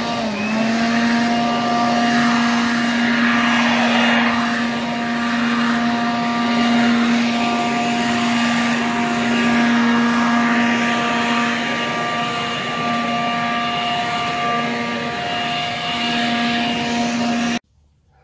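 Electric leaf blower running steadily: a motor hum with a high whine over rushing air. It cuts off abruptly near the end.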